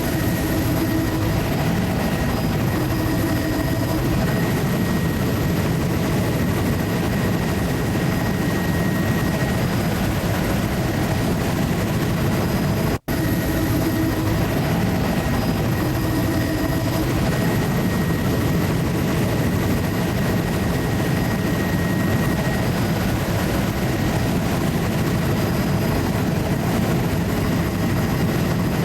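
Steady drone of the survey aircraft's engine and propeller or rotor, heard from inside the cabin in level cruise, with a momentary dropout in the sound about halfway through.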